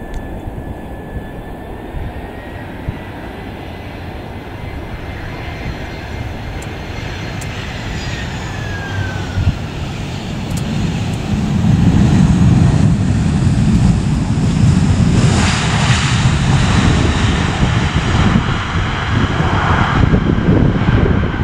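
Airbus A319 jet airliner landing. A steady engine whine falls in pitch about eight to ten seconds in, then a much louder low rumble of jet engines follows from about eleven seconds on, after touchdown and through the rollout.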